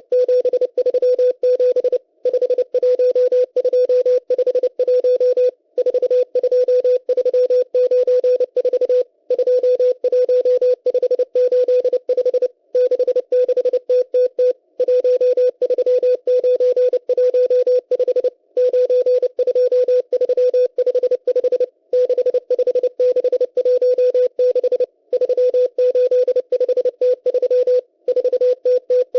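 Shortwave Morse code from the M12 numbers station, received as a steady beat tone of about 500 Hz keyed rapidly on and off. It sends groups of numbers, each group separated by a short pause about every three seconds.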